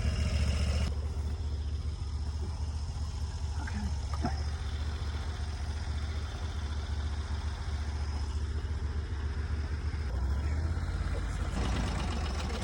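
Portable band sawmill's engine running steadily with a low drone, a little louder in the first second.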